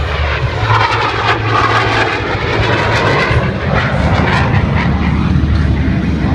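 Jet engine roar from Blue Angels F/A-18 Hornets in a high-speed pass, loud and continuous, its tone sweeping up and down as the jets move past.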